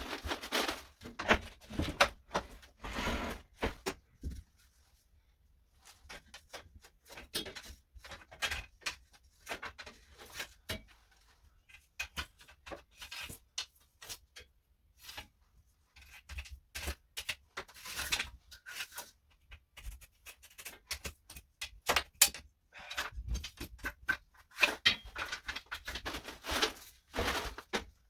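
Irregular knocks, clatter and short scraping noises of building materials being torn out and handled during demolition work, in clusters with brief pauses.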